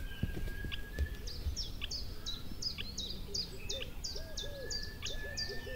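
Wild bird calls: a rapid run of short, high chipping calls, about three a second, with a long thin whistle at the start and again near the end, and lower looping notes coming in during the last couple of seconds.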